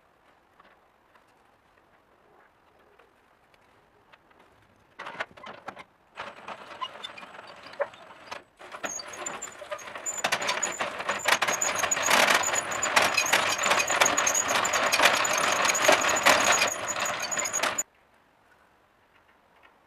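A cordless drill turning a row of home-cut, thickly greased metal spur gears on a BBQ rotisserie drive, the gear teeth clattering and grinding with a steady high whine. It starts in short bursts about five seconds in, then runs steadily and gets louder, and cuts off suddenly near the end.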